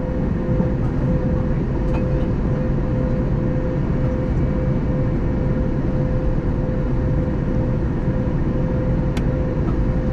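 Steady cabin noise of an Airbus A321neo in flight: an even drone of engines and rushing air with a constant mid-pitched hum running through it. A brief sharp click sounds about nine seconds in.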